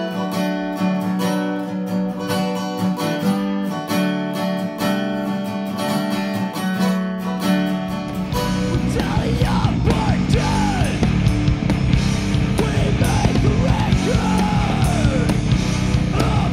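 Acoustic guitar played in clean, ringing chords and picked notes for about eight seconds, then a denser, louder full-band heavy rock mix comes in, with wavering, sliding pitched lines over it.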